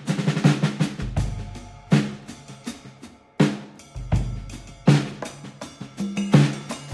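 Background music with a drum-kit beat and bass notes.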